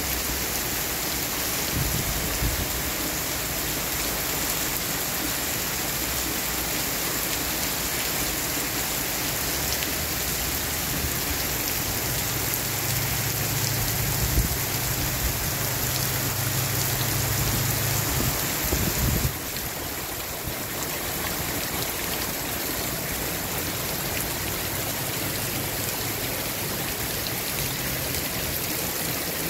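Heavy tropical-storm rain falling steadily on lawn, pavement and trees. The level dips slightly about two-thirds through.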